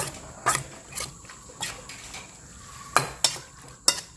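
Metal utensils clinking against a dish in sharp, irregular strikes, about seven in all, while buffalo larb is mixed.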